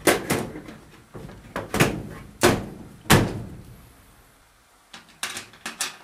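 Sheet-metal furnace access door being put back on: a series of knocks and clunks as the panel is seated, the loudest about three seconds in, then a few lighter clicks near the end.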